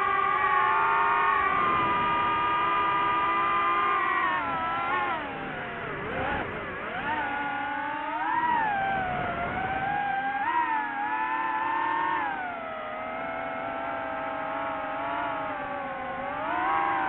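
DJI FPV drone's motors and propellers whining in flight, the pitch rising and falling with the throttle. The tone holds steady and high for about four seconds, sinks to a deep low about six seconds in, then wavers up and down for the rest.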